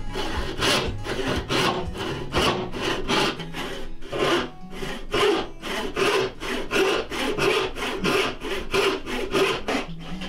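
Hand saw cutting through oak in quick back-and-forth strokes, about two or three a second, each stroke a dry rasp of the teeth through the wood.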